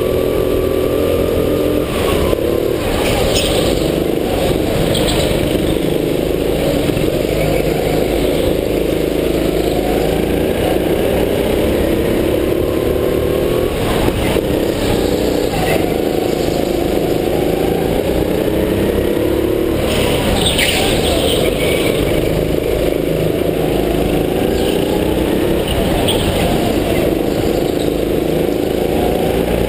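Go-kart's small engine running hard around a track, its pitch climbing and dropping again and again as the throttle opens on the straights and eases for the corners.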